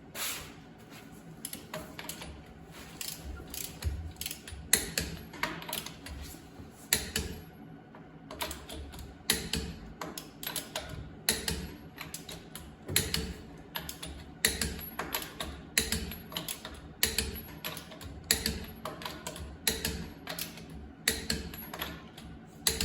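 Ratcheting wrench clicking in repeated bursts of quick clicks as the wheel's lug nuts are tightened and torqued down.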